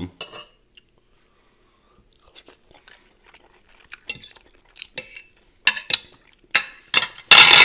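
Close-miked chewing of a cheesy omelette with peppers: wet mouth clicks and crackles that start faint about two seconds in and grow denser and louder, with a loud crunchy burst near the end.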